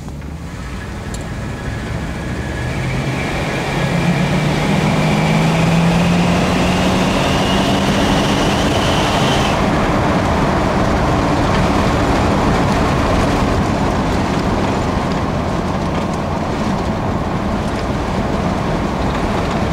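1966 Chevy Biscayne's 396 big-block V8, its exhaust just blown clear, accelerating hard from inside the cabin. The engine note climbs steadily for several seconds, drops suddenly about nine or ten seconds in, then settles into steady engine and road noise.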